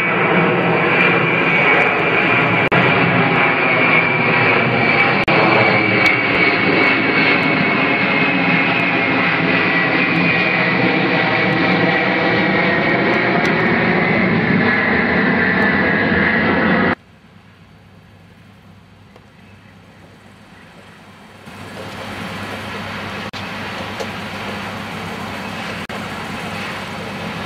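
A four-engine jet transport plane flying overhead: loud, steady jet noise with a high whine that slowly falls in pitch, cut off suddenly about 17 seconds in. After a few quieter seconds, a steady, quieter engine sound comes in, likely the narrow-gauge diesel locomotive approaching.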